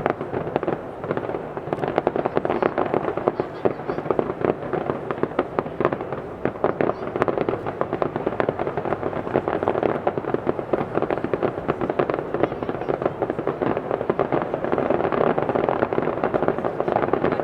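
Fireworks display: a dense, continuous run of bangs and crackles with no pause.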